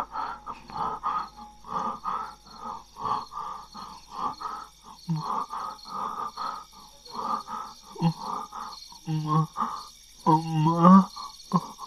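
A man gasping for breath in rapid, strained breaths, about three a second, breaking into choked groans about nine seconds in. Crickets chirr steadily behind.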